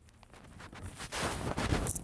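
Rustling and knocking from a hand handling the phone camera right at its microphone, starting about a second in and loudest near the end.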